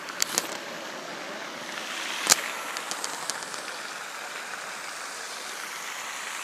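Steady outdoor rushing noise with a few sharp clicks and taps from the phone being handled close to its microphone, the loudest about two seconds in.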